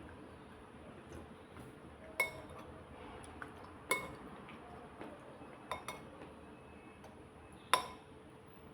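Cutlery clinking against a dish while eating: about five short, ringing clinks spread a second or two apart, two of them close together.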